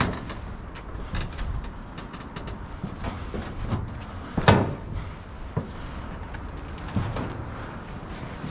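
Irregular knocks, scuffs and clatter of people climbing down through a bare concrete building, with a sharp knock about four and a half seconds in, over a low rumble.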